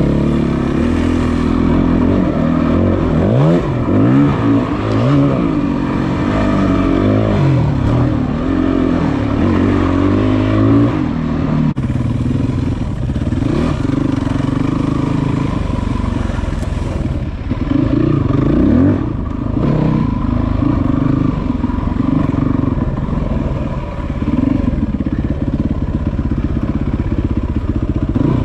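Yamaha WR450F's single-cylinder four-stroke engine being ridden on dirt trails. The revs climb and drop again and again through roughly the first ten seconds, then it runs steadier with smaller surges of throttle.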